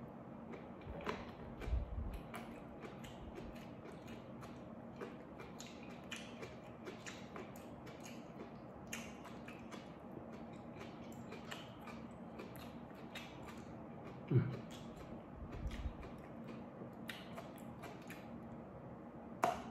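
A person eating with his bare hands, with quiet chewing, mouth clicks and small scattered clicks of fingers working food on a stone plate. A steady low hum runs underneath, and a brief louder low sound comes about fourteen seconds in.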